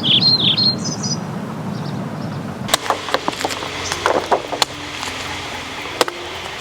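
A bird sings a quick run of repeated high chirps for about the first second. After a short pause comes a series of sharp, irregular knocks and clicks, knife strokes cutting into a jackfruit.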